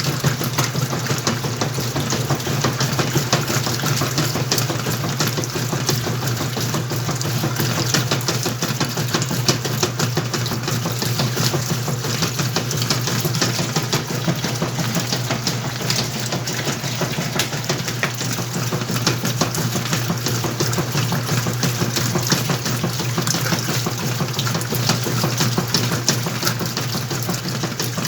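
Whirlpool washing machine running mid-cycle: a steady motor hum with water noise from the drum.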